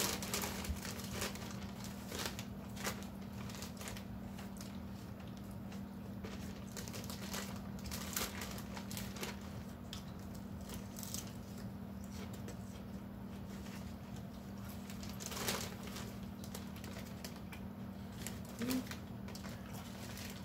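A plastic salad bag crinkling as it is handled and salad is pulled out of it, mixed with crunchy chewing in irregular clicks and rustles. A steady low hum runs underneath.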